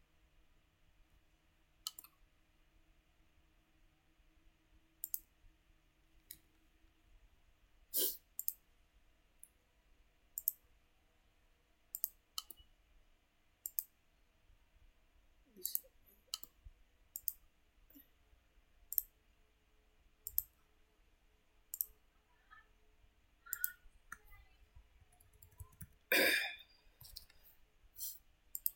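Computer mouse clicking: single sharp clicks every second or two. About three-quarters of the way through there is one louder, longer noise.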